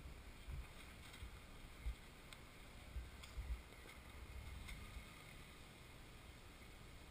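Faint low rumble of an SUV engine crawling slowly over rock, with wind buffeting the microphone in gusts and a few light clicks.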